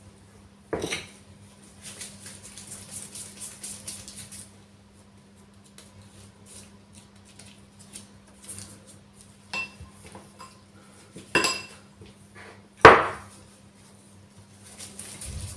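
A metal teaspoon clinking and knocking against ceramic and glass bowls as cookie dough is scooped out: a few sharp knocks, the loudest near the end, with a stretch of soft crackling in between.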